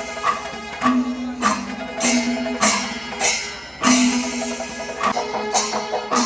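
Traditional-style music: sharp percussion strikes, roughly one a second, over a steady held low note.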